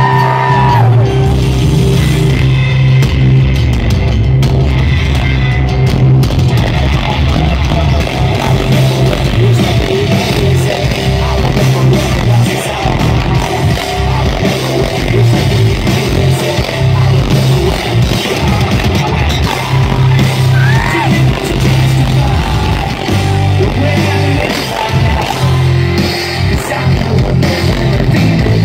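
Three-piece rock band playing loud live through a stage PA: electric guitar, bass guitar and drum kit.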